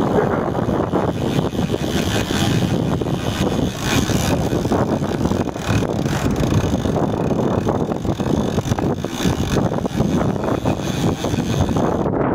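Twin Suzuki outboard motors running as the boat trolls through choppy water, a steady drone mixed with wind buffeting the microphone and water rushing past the hull.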